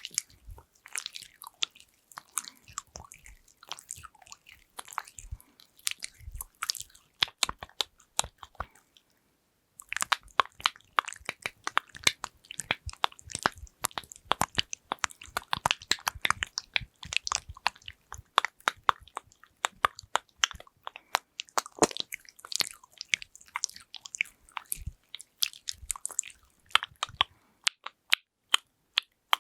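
Close-miked ASMR tapping and handling sounds: fast, dense clicks and crackles, with a pause of about a second around nine seconds in.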